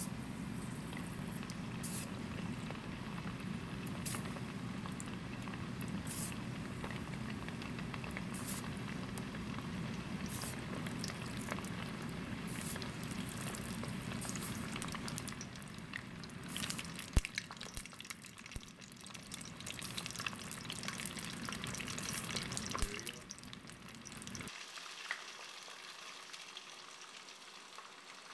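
Battered pieces deep-frying in hot oil: a steady sizzle and bubbling with scattered crackling pops. Near the end it drops abruptly to a quieter sizzle.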